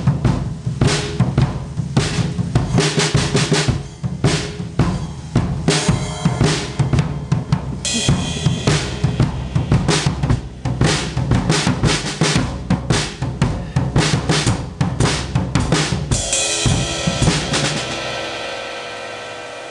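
Drum kit played in a fast, busy solo of snare, tom and bass drum hits with quick rolls. A cymbal rings under the hits about eight seconds in, and near the end a cymbal crash rings out and slowly fades as the drumming stops.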